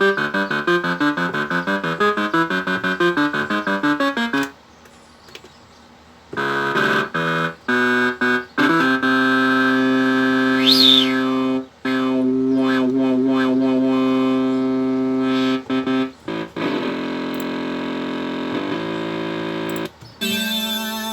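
Synthesizer sounds played from a MIDI keyboard controller during a sound test. First comes a fast run of repeated notes, then after a short lull a series of held chords, with a quick pitch sweep up and back down about halfway through. Near the end it turns to a hazier, noisier sustained tone, then a new note.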